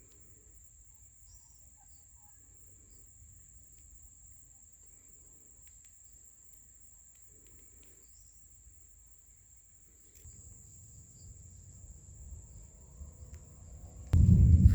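Steady, unbroken high-pitched trill of crickets or similar insects over faint background. Near the end a loud low rumble cuts in suddenly.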